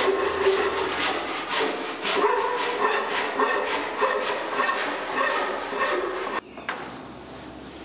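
Hand saw cutting through a wooden bell stay, brisk back-and-forth strokes about four a second, stopping suddenly about six seconds in.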